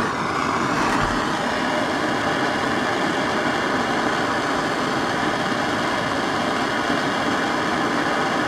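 Handheld propane torch burning with a steady hiss, its flame heating an ATV's rear wheel-bearing housing so the press-fit bearing will break free.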